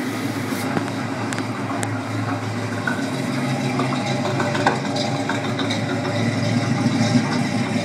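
1978 Pontiac Trans Am's V8 engine idling steadily, with a few faint clicks.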